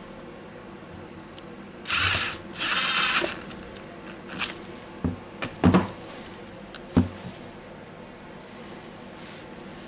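Bosch cordless impact driver run in two short bursts, driving the screw at the mode-selector knob of a DeWalt DCH273 rotary hammer. A few short knocks and clicks follow as the driver is handled and set down on the wooden board.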